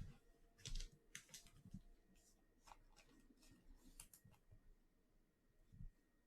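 Faint handling sounds of baseball trading cards: a scatter of soft clicks and rustles, mostly in the first four seconds, as the cards are slid and turned by hand.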